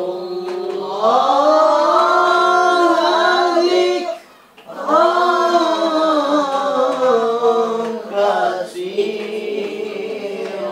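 Melodic Qur'an recitation (tilawah): long, ornamented held notes that glide up and down, in two long phrases with a breath pause between them and a third phrase starting near the end.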